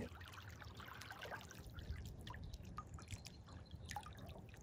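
Faint lake water lapping at the shore: a quiet wash with many small, irregular splashes and drips.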